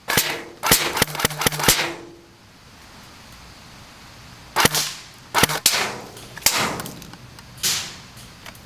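Airsoft guns firing single shots: a quick run of about six sharp shots in the first two seconds, then a few more spaced shots a couple of seconds later.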